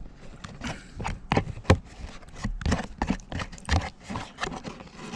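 A person chewing a mouthful of poutine (fries, gravy and cheese curds) close to the microphone: a run of irregular mouth clicks and smacks, a few a second.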